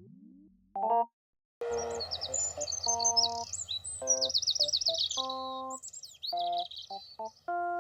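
Birds chirping and trilling over light music of short, evenly stacked keyboard-like notes, after a brief silence about a second and a half in.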